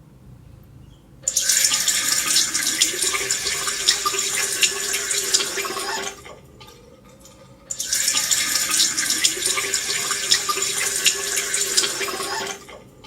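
Water running from a tap into a sink, in two runs of about five seconds each with a short pause between.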